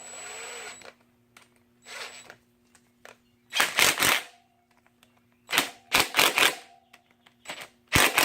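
Bursts of sharp metallic clicks and knocks from hand tools working on a motorcycle chain, in three clusters of several strikes each, about two seconds apart.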